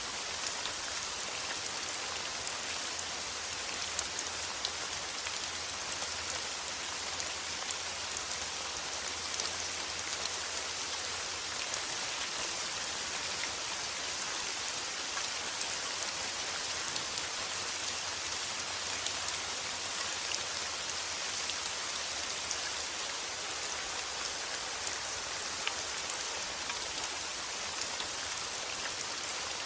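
Heavy rain falling steadily, an even hiss dotted with sharp ticks of single drops striking a surface.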